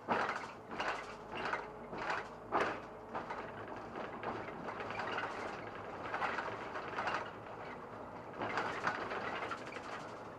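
SOR NB 12 city bus running, with a quick series of sharp knocks and rattles over the first three seconds, then a steady running noise that swells and eases.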